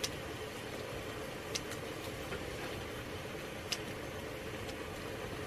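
Marinated beef short ribs sizzling on a hot, steaming griddle, with a few sharp clicks of kitchen scissors and tongs cutting the meat.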